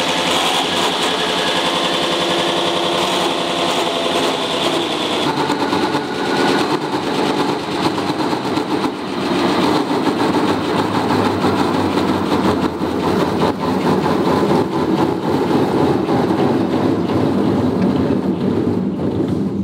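Big lathe turning a hard-steel workpiece, its steady-rest support roller bearing failing. A steady machine whine with many tones runs first; about five seconds in the high whine cuts out and gives way to a rough, rattling grind with frequent clicks. This is the upper support roller's bearing breaking up after running over its speed rating.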